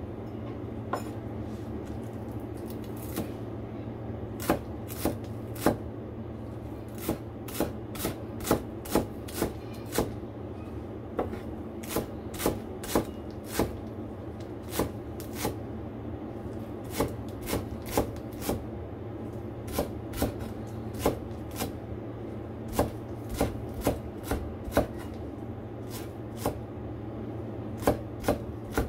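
Chinese cleaver finely chopping green chives on a cutting board: sharp knocks of the blade on the board at an uneven pace, about one to two a second, over a steady low hum.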